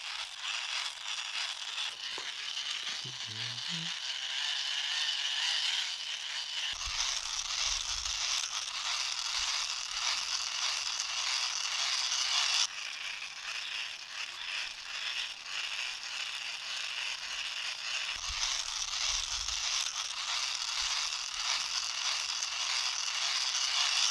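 Small hand-crank dynamo phone charger being cranked continuously: a steady plastic rattling with fast, even clicking from its turning mechanism, dipping in level about halfway through, with a few low handling bumps.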